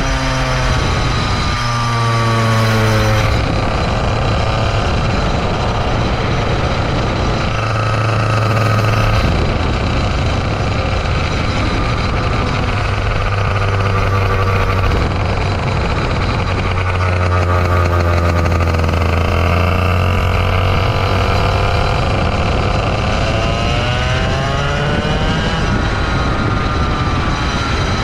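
Racing kart engine running at speed. Its pitch drops at the start, holds fairly steady through the middle, then climbs again and falls once more near the end as the driver lifts and accelerates through corners.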